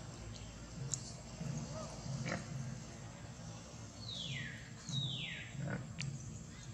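Animal calls: two quick falling squeals about four and five seconds in, with shorter upward-sliding calls before them, over a low pulsing sound that repeats roughly every two-thirds of a second.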